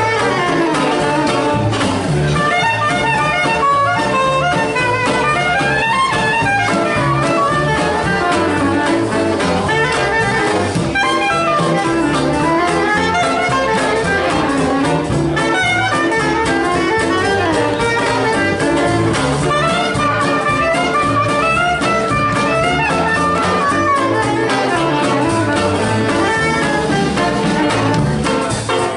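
Small Dixieland jazz band playing live, with a saxophone carrying the melody over a strummed banjo and a plucked upright bass.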